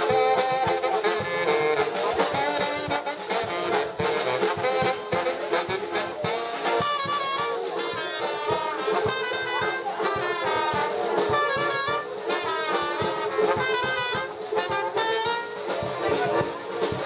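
German-style brass band (bandinha) playing live, a lively tune with a steady beat.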